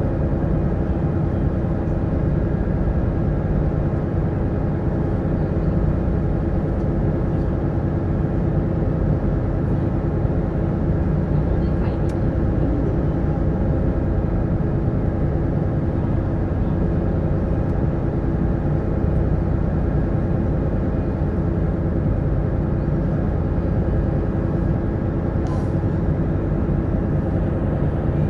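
Steady drone of a sightseeing cruise boat's engine running underway, an even low hum with a few constant tones.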